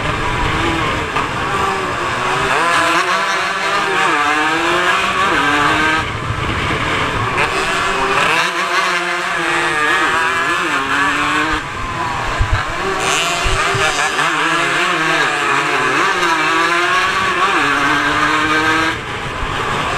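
150cc racing motorcycle engine at full throttle, heard from a camera on the bike: the pitch rises through each gear and drops at each upshift, again and again.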